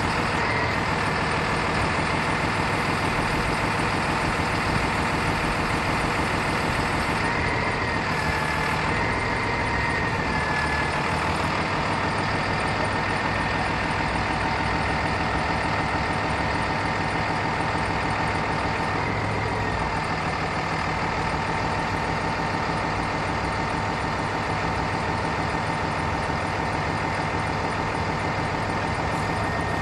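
Freightliner bucket truck's diesel engine running steadily, with a steady whine from the Altec AT37G's hydraulics as the aerial boom is raised. The whine wavers in pitch a third of the way in and again past halfway.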